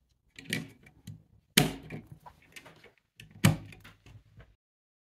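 Watercolour paint pans being pressed into a metal tin palette: small clicks and taps, with two sharp knocks about a second and a half in and again a couple of seconds later. The sound cuts out abruptly shortly before the end.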